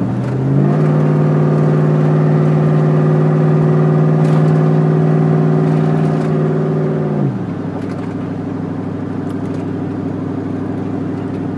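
Chevrolet Silverado's 4.8-litre V8 through a loud exhaust, heard from inside the cab at highway speed. About half a second in the exhaust note rises in pitch and gets louder as the engine is given gas, holds steady, then drops back about seven seconds in as the throttle closes.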